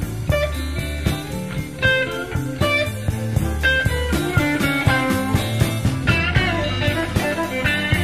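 Electric Chicago blues band playing an instrumental passage: electric guitar lines over a steady bass, with bent guitar notes about six seconds in.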